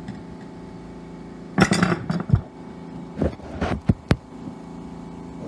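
Metal clinks and knocks in two short clusters over a steady hum, like hard metal objects being handled and set down.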